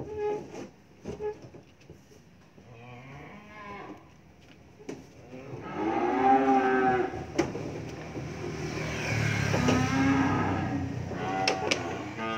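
Young beef calves bawling repeatedly while being unloaded from a livestock truck: a few faint calls, then two loud, long ones about six seconds in and again around nine to ten seconds. A few sharp knocks fall between the calls.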